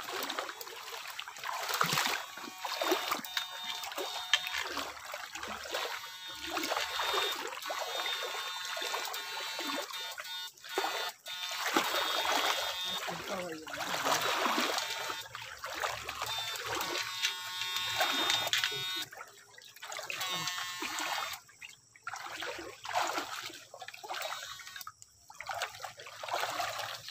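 Water splashing and trickling around someone wading through a shallow, fast-flowing stream, coming and going unevenly.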